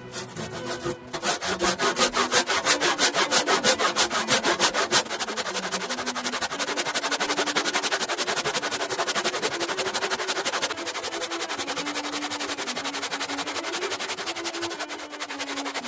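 Rhythmic back-and-forth hand strokes of a tool on wood. The strokes come at about four a second for the first few seconds, then turn faster and lighter from about five seconds in.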